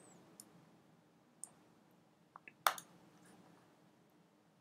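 A few sparse computer mouse clicks over faint room hiss, the loudest about two and a half seconds in.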